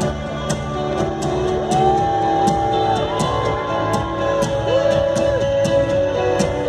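Live rock band playing a passage without lyrics. Cymbal strokes keep a steady beat of about two a second under long held notes that slide into and out of pitch.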